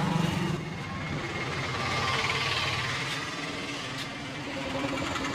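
Steady street traffic noise with a motor vehicle engine running.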